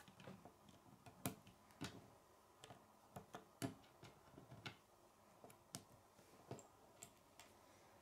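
K'nex plastic rods and connectors clicking as they are handled and snapped together: faint, scattered clicks at irregular intervals.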